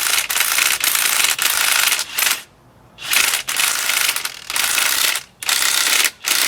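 Impact wrench hammering in three long bursts, spinning the top nut onto a KW coilover shock's piston rod while the rod is held by hand.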